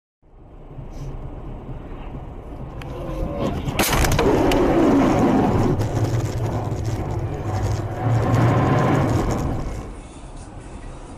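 A car crash recorded from inside the car by its dash cam: vehicle noise building, a sharp bang about four seconds in, then several seconds of loud rumbling, rushing noise that drops to quieter road noise near the end.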